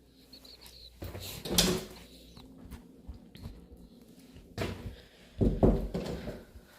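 A door being opened and shut: knocks and rattles in two bursts, about a second in and again about five seconds in.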